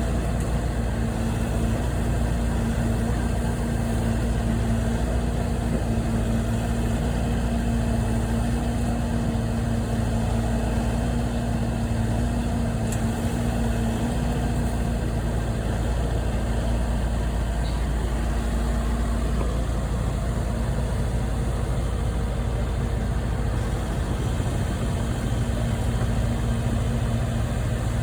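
An engine running steadily at idle, a continuous low hum with a steady tone in it that fades out about halfway through.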